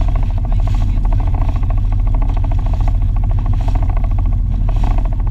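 Jet ski engine running steadily, a loud, dense rumble with a rapid even pulse.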